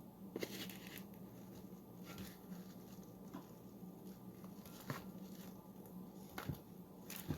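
Faint squishing and a few light taps as raw ground beef is put into a bowl, over a low steady hum.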